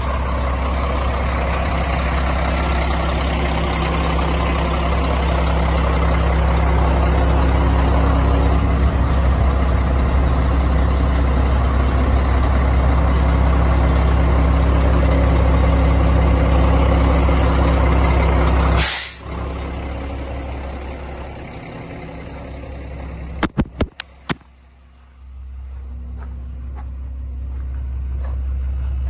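International tandem dump truck's diesel engine running steadily, cut about two-thirds through by a sudden sharp hiss of released air, after which the engine sound drops away. A few sharp clicks follow, then the engine sound builds again.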